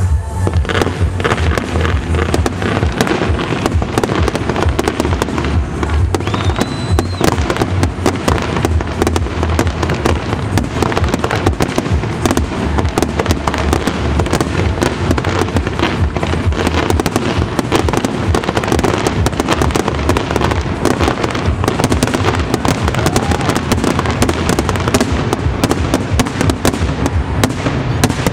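Fireworks display: a dense, unbroken barrage of shell bursts and crackling. A short high whistle sounds about six seconds in.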